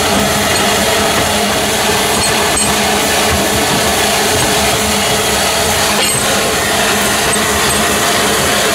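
Narrow-gauge steam locomotive running along the track, heard from on the engine: a loud, steady running noise of the engine and its wheels on the rails.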